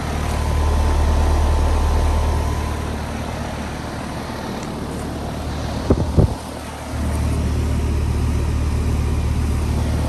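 Outdoor central air conditioner condensing unit running: a steady low hum from the compressor and condenser fan. A couple of knocks come about six seconds in, the hum drops out briefly, and then it comes back.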